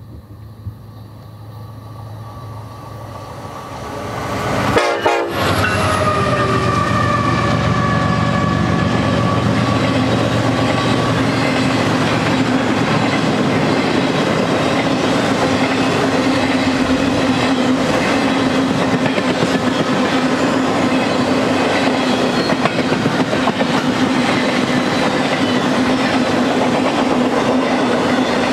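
Freight train approaching and passing, led by an EMD SD70ACe locomotive, growing louder over the first few seconds. The locomotive's multi-chime air horn then sounds for about seven seconds, its pitch sagging slightly as it passes. After that comes the steady noise of the empty intermodal spine cars rolling past on the rails.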